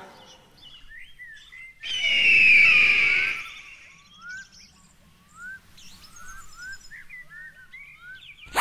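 Small birds chirping, with short rising calls repeated throughout. About two seconds in comes a loud screaming cry from a bird of prey, falling in pitch over about a second, as in the usual eagle-scream sound effect. A sharp click sounds near the end.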